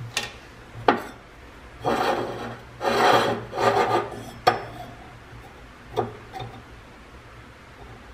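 A large outside micrometer and a steel cylinder sleeve handled on a workbench as the micrometer is set over the sleeve to measure its outside diameter. Two light clicks, then scraping and rubbing for about two and a half seconds, a sharp knock, and two more small clicks about six seconds in.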